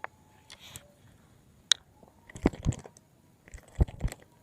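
A sharp click, then two short clusters of dull knocks, as of objects being handled or bumped.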